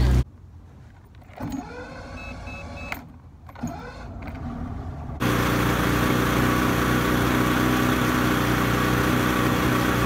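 Mercury 115 two-stroke outboard motor running steadily, coming in abruptly about five seconds in after a few seconds of quieter, indistinct sound.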